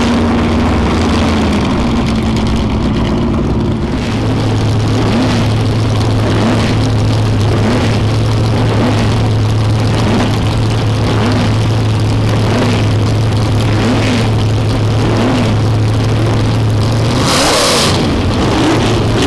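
Formula 5000 racing car's 5-litre V8 idling loudly with a steady low drone, then a sharp blip of the throttle near the end.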